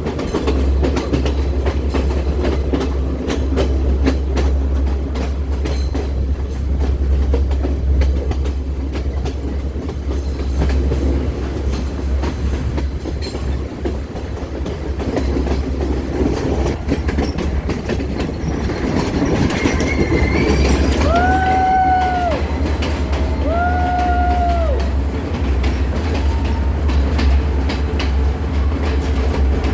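Passenger train running on the rails, a steady rumble with clickety-clack of the wheels over rail joints. Past the middle the train horn sounds two short blasts.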